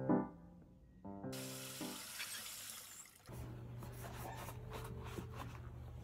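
Soft background music: a few mallet-like notes dying away, then a short chord. About a second in, a steady rushing hiss starts and runs for about two seconds, and a low steady hum follows.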